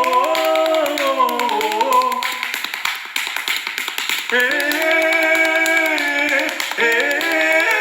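A voice sings wordlessly, holding long wavering notes: one of about two seconds at the start, then a longer held note from about four seconds in. Rapid sharp taps or snaps sound throughout.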